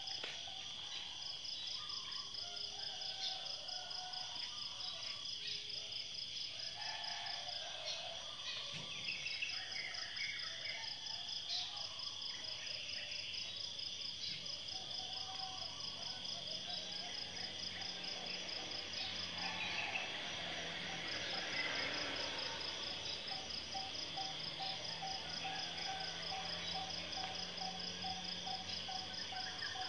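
Steady outdoor chorus of insects such as crickets, a continuous high trill with rapid, evenly pulsed chirping above it. Short bird chirps come now and then.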